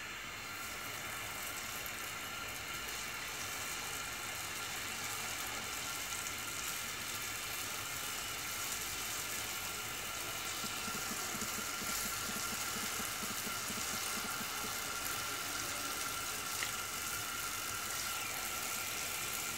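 Balls of zalabia dough deep-frying in a pot of hot oil, the oil sizzling steadily and growing slightly louder over the first few seconds as more dough is dropped in.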